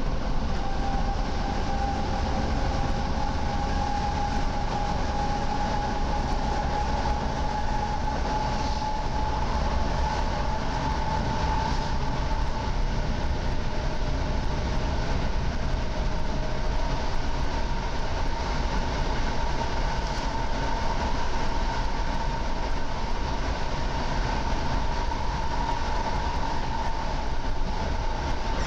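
EN57AKM electric multiple unit running along the line, heard from inside the carriage: a steady rolling rumble with a high whine whose pitch creeps slowly upward.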